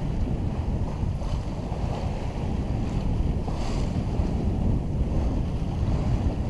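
Wind buffeting the microphone over water rushing along the hull of a Tartan 37 sailboat sailing close-hauled through ocean swells, with a brief louder hiss a little past halfway.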